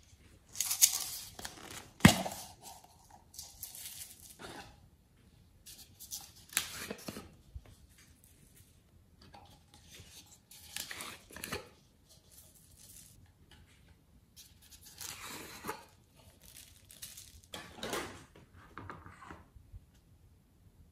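Hands handling slime-making materials: a sharp click about two seconds in, then several separate short bursts of tearing and crinkling a second or so long, with quiet between.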